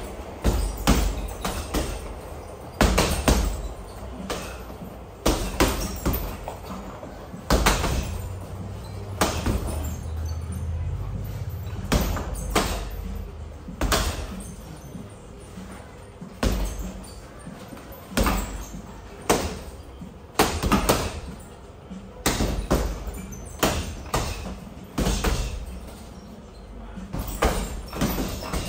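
Boxing gloves striking punching bags: irregular thuds and slaps, sometimes two or three in quick succession.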